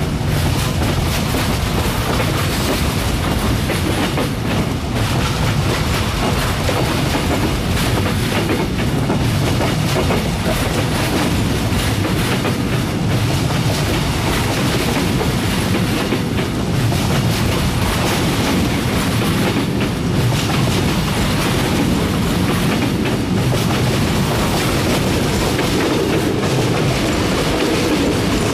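Passenger coaches of a departing Vietnam Railways train rolling past close by, a steady heavy rumble with repeated knocks of the wheels over the rail joints.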